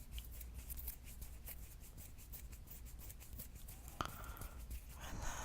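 Fingernails scratching across a palm close to the microphone: a stream of faint, quick scratchy ticks, with a heavy breath near the end.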